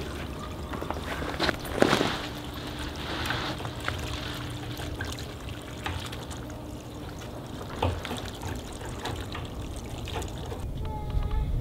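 Brown slurry of sheep manure and water trickling out of the bottom valve of an IBC tote and splattering onto gravel.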